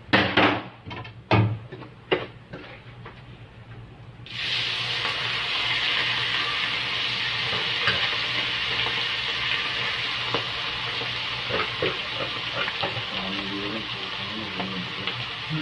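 A few loud knocks in the first seconds. Then, about four seconds in, a loud sizzle starts suddenly as tofu with tuna hits a hot cast-iron sizzling plate. It hisses on, easing slightly, with a few scrapes and taps of the serving spoon.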